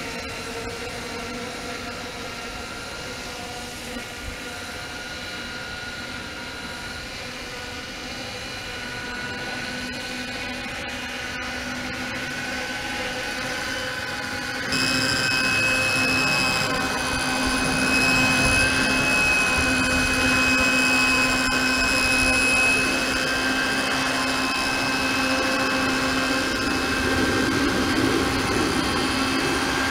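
Electric model helicopter with a five-bladed rotor head spooling up and lifting off: a steady whine of several held tones from its low-kV brushless motor and rotor, growing louder, with a sudden jump in level about fifteen seconds in and a rumble of rotor wash after it.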